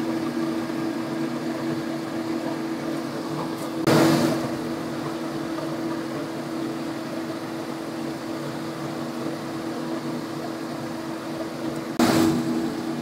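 Fried noodles cooking in a steel wok over a low gas flame, a wooden spatula stirring and scraping through them, over a steady mechanical hum. A short louder clatter about 4 seconds in and another near the end.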